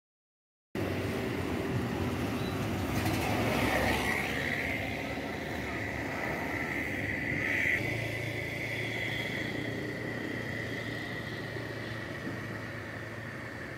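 A motor scooter passes close by on the road, its engine whine rising twice and dropping away about halfway through, over a steady hum of outdoor traffic.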